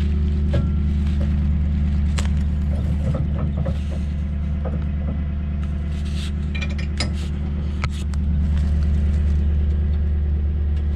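A 2019 Toyota Tundra's V8 idling steadily close by, a deep even rumble. Light metal clinks and taps come and go on top of it from about two to eight seconds in, as hitch hardware is handled at the back of the truck.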